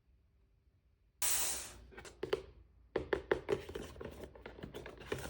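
A blind-box packaging bag torn open about a second in, followed by a run of plastic crinkling and small clicks as it is handled.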